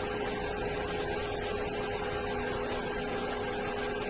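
Steady background hiss with a constant low hum tone, unchanging throughout.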